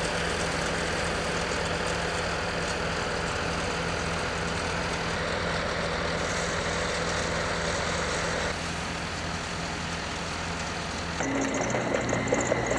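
Diesel engines of heavy earthmoving machines, a tracked excavator and a crawler bulldozer, running steadily. The sound shifts abruptly twice, and near the end it gets louder and uneven as the excavator digs.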